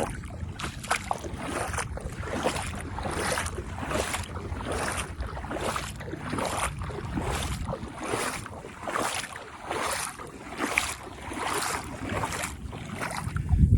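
Footsteps sloshing through very shallow water over seagrass and sand at a steady walking pace, about three steps every two seconds, with wind buffeting the microphone.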